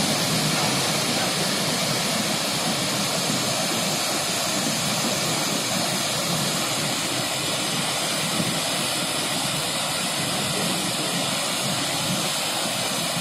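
Water released through a dam's spillway gates, pouring down the dam face in a massive torrent: a steady, dense rush of water.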